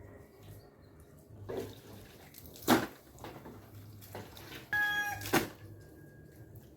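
A few sharp knocks, and near the middle one short high-pitched animal call lasting about half a second.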